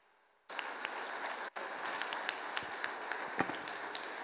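Audience applauding, a dense patter of many hands clapping. The sound cuts out for about half a second at the start and again for an instant about a second and a half in.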